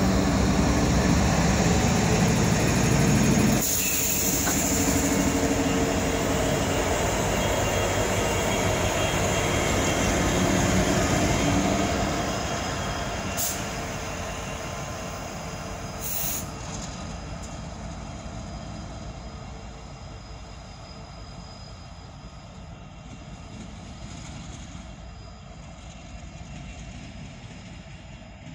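CSX diesel locomotives running close by, engines and wheels on the rails making a loud rumble, which fades steadily from about halfway as the locomotives move away. Two short sharp clicks sound in the middle.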